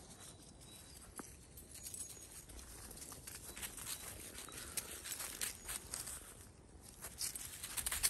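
Footsteps and a puppy's paws crunching and rustling through dry fallen leaves: an irregular crackling that grows louder near the end.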